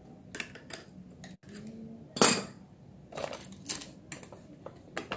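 Metal clicks and clinks of circlip pliers seating a piston-pin snap ring into a scooter piston, a handful of separate clicks with the loudest a little over two seconds in.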